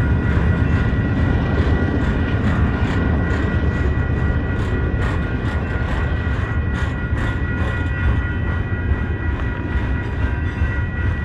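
Union Pacific coal train's hopper cars rolling past: a steady, loud low rumble with a quick irregular clicking of the wheels over the rail joints. A few steady high ringing tones run under it.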